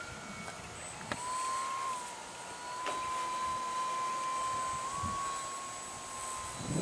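Electric brushless motor and propeller of an E-flite T-28 Trojan RC plane in flight, a steady whine that sets in about a second in and holds nearly level, shifting slightly in pitch once or twice.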